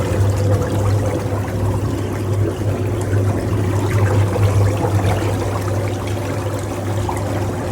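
Ozone therapy spa bath running: water bubbling continuously over a steady low hum from the bath's air pump.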